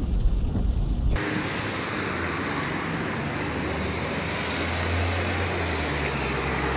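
Low rumble of a moving car heard from inside its cabin. About a second in it cuts abruptly to a steady rushing noise of road traffic with a low hum under it.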